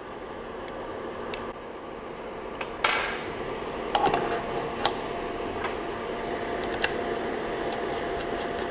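Small metal clicks and clinks of an Allen key working the build-plate screw on a Creality LD-002R resin 3D printer, the loudest a short scraping clatter about three seconds in, over a steady hum.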